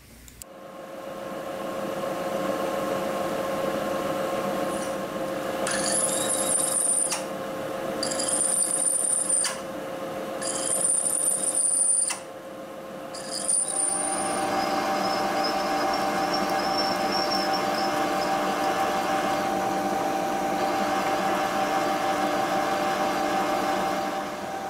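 Milling machine spindle spinning up and running while a cutter bores a larger hole into the end of a steel hex speed handle. Four separate bursts of high-pitched cutting squeal sound as the tool feeds in. About halfway through, the spindle's pitch shifts and it runs steadily.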